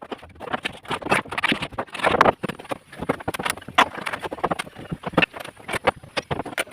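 Irregular knocking and clattering of timber formwork being stripped from under a cast concrete slab: boards and props struck and knocked loose, several sharp knocks a second.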